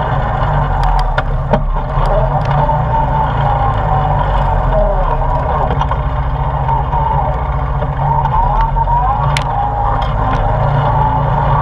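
ATV engine running under way on a rocky dirt trail, its pitch wavering as the throttle changes, with a few sharp knocks and clicks from the bumpy ride.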